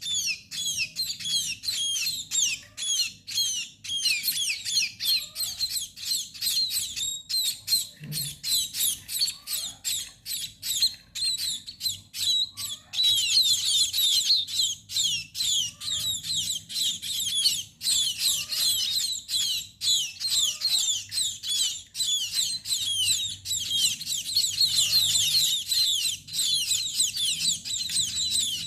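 A flock of small birds chirping busily and without pause: many quick, high, downward-sliding chirps overlap one another, and the chatter grows denser about halfway through.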